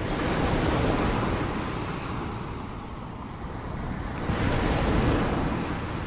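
Ocean waves washing onto a shore, two in a row: one swells in the first second and draws back, and the next rolls in about four seconds in.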